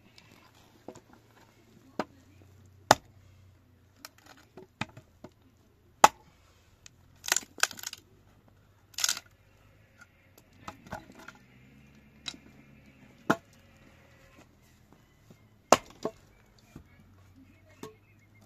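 Chopping: about a dozen sharp knocks and cracks at uneven intervals, with a quick cluster of strikes a little before the middle.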